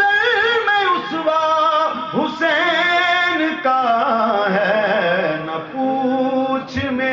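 A man singing a devotional Urdu naat into a microphone, in long melodic lines with wavering, drawn-out notes.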